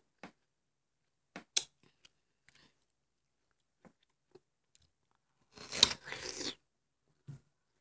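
A person biting into and chewing watermelon face-first without hands: scattered short, sharp bites, then a louder stretch of about a second near the end.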